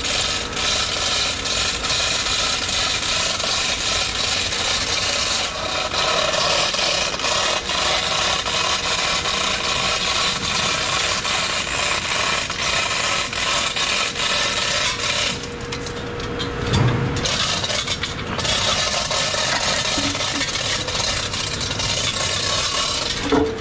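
Chain of a hand chain block rattling and clicking as an electric motor hangs from it and is guided into place, with a heavier knock about two-thirds of the way in. Steady machinery noise runs underneath.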